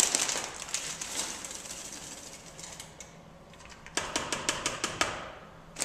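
A paper sugar bag rustling and crinkling as a plastic measuring cup scoops sugar out of it. About four seconds in comes a quick run of light clicks and clatter as the sugar is tipped into a plastic mixing bowl and the ringed measuring cups knock together.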